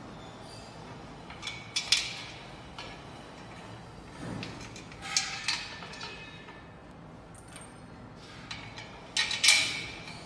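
Steel bench-frame parts and bolts clinking together as they are fitted by hand: three bursts of sharp metallic clicks with a brief ring, the loudest near the end.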